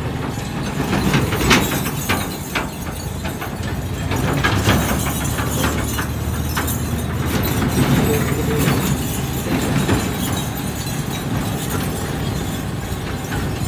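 Motorcycle engine running while riding over a rough, rutted dirt track, with clattering knocks and rattles from the bumps.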